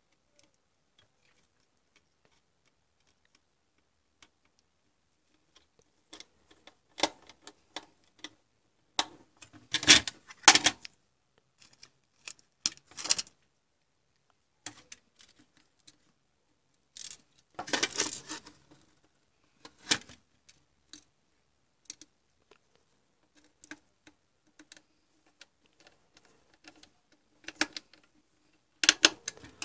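Irregular clicks, knocks and scraping as a digital photo frame's plastic case and circuit board are pried and handled with a small screwdriver, starting about five seconds in and coming in short clusters.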